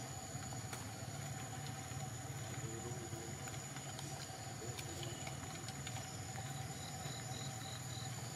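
Forest ambience: a steady high insect drone over a constant low rumble, with a few faint clicks and a short run of five high chirps near the end.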